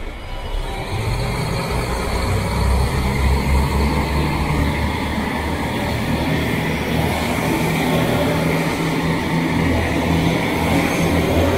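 JR Hokkaido express train rolling slowly past the platform: a steady rumble of wheels on the rails with a low motor hum, growing a little louder after the first second.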